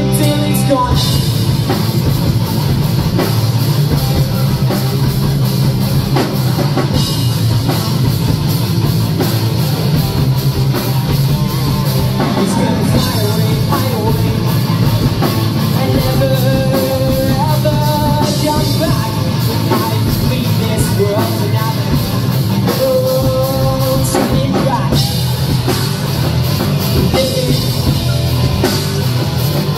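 Live rock band playing loudly: drum kit, electric guitars and bass guitar, filling a hall.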